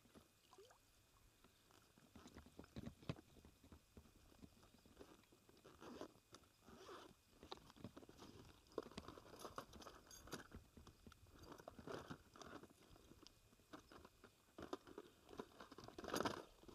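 Faint crunching, clicking and scratching from a black bass being handled by its jaw, with a louder scuffle near the end.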